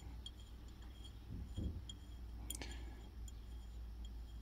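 Quiet handling of a small steel gib-adjusting screw being turned out by hand from a Myford ML7 lathe slide: faint metallic clicks, a soft knock about a second and a half in and a sharper click about two and a half seconds in.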